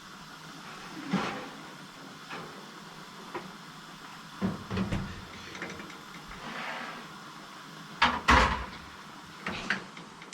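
Kitchen clatter: a handful of separate knocks and clunks of things being handled and set down, the loudest double clunk about eight seconds in.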